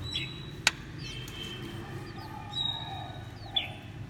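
Thin, high-pitched cheeps from oriental magpie-robin nestlings, scattered short notes over a steady low hum. There is a single sharp click about two-thirds of a second in.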